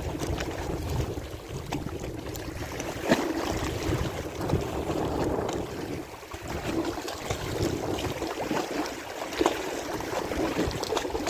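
Wind buffeting the microphone over water lapping at the shore, with a few small clicks.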